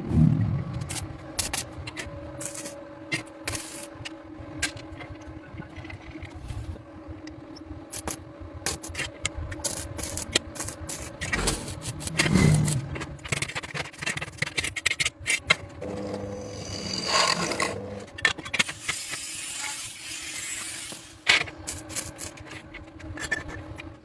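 Irregular scraping, clicks and knocks of tools and workpieces being handled, over a steady low hum. A longer rasping scrape comes about two-thirds of the way through.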